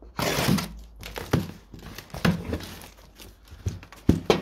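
A cardboard shipping box being opened: a short noisy rip of packing tape being slit along the top at the start, then cardboard flaps rustling and knocking several times as the box is pulled open.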